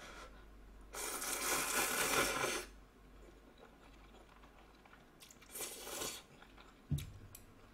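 Instant ramen noodles being slurped off chopsticks. A long, loud slurp comes about a second in, a shorter slurp comes near six seconds, and a soft knock follows just before the end.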